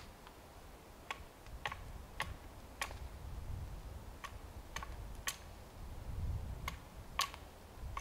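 Wood fire crackling: about nine sharp, irregular pops and snaps, spaced roughly half a second to a second and a half apart, over a low rumble.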